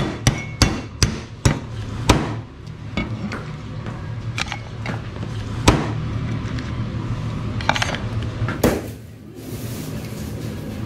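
A steel cleaver chopping through soy-sauce-marinated crabs on a cutting board. There is a quick run of sharp chops, about six in the first two seconds, then a few more spaced out.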